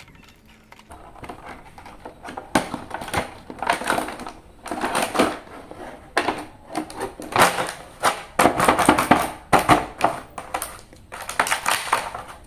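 Plastic toy packaging crinkling and rustling as it is handled and opened, in repeated bursts with small crackles.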